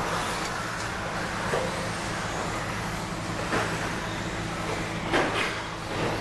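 Electric RC stadium trucks with 13.5-turn brushless motors racing on an indoor dirt track: a steady wash of motor whine and tyre noise. Several sharp knocks from the trucks cut through, the loudest about five seconds in.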